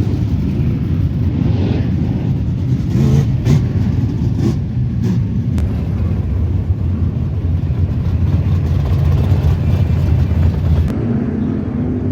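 Race car engines running, loud and steady, with a few sharp clicks about three to five seconds in; the sound changes abruptly about a second before the end.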